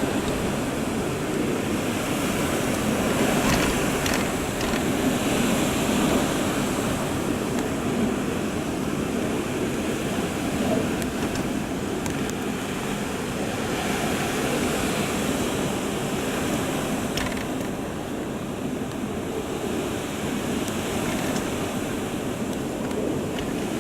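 Typhoon wind blowing hard past a balcony in a continuous rushing noise that swells and eases slightly, with a few faint ticks or rattles.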